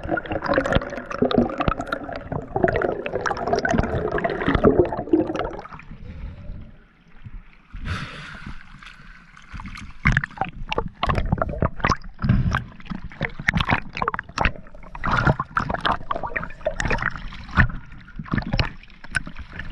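Water gurgling and sloshing, followed from about eight seconds in by many irregular knocks and clicks.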